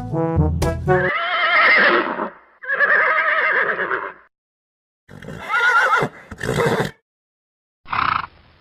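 Horse neighing: a series of four or five wavering whinnies with short silent gaps between them, following the last second of a brass music tune.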